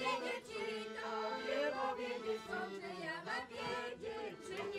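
Accordion playing a Polish folk tune, its held chords steady underneath, with voices singing along.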